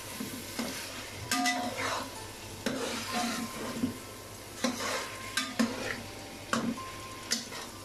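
A metal slotted spoon scrapes and knocks against a metal pot, making about nine irregular strokes, while stirring chicken masala that sizzles as it fries. The water has cooked off, so the masala is frying in its own oil.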